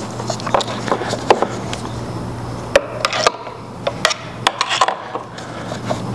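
Irregular light clicks and knocks of a screwdriver and wiring being handled in a motorcycle's battery box, over a steady low hum.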